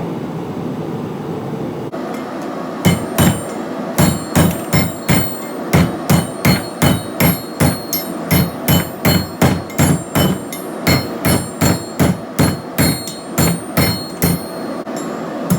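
Hand hammer striking heated flat steel being forged, in an even run of blows about two a second, each with a bright metallic ring. The blows start about three seconds in, after a stretch of steady background noise.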